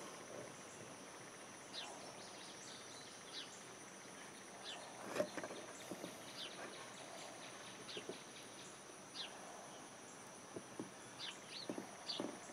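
Faint, steady high-pitched insect drone with short bird chirps, over scattered soft clicks and scrapes of a razor knife cutting slowly through a plastic kayak deck. The loudest click comes about five seconds in.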